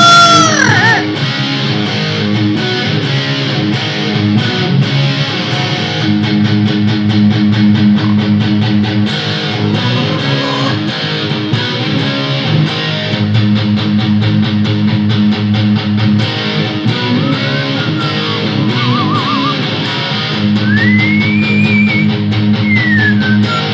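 Rock music with a distorted electric guitar riff, bass and drums playing steadily. Near the end a whistled note rises and falls over it, like a parrot whistling along.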